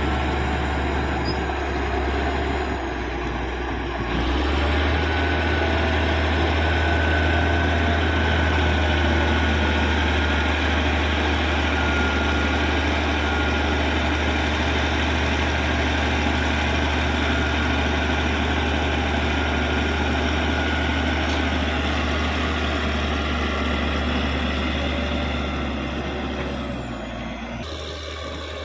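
Caterpillar D6G bulldozer's six-cylinder diesel engine running steadily under load. It rises in level about four seconds in, holds there, and eases off near the end.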